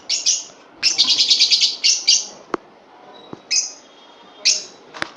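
Small pet birds chirping in short high bursts, with a longer rapid trilling run about a second in. A few sharp clicks fall between the calls.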